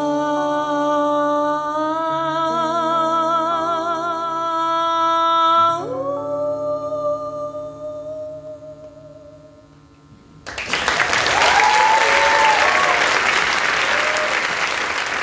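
A female singer holds the song's final note with heavy vibrato over sustained instrumental chords, steps up to a higher closing note about six seconds in, and lets it fade. About ten seconds in, the audience breaks into loud applause with a shouted whoop.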